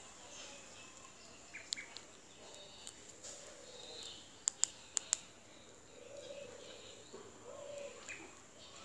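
Indian palm squirrel nibbling paddy grains, giving a few sharp clicks of cracking husks, three of them close together about halfway through. Faint bird chirps and a steady high insect-like whine sit behind it.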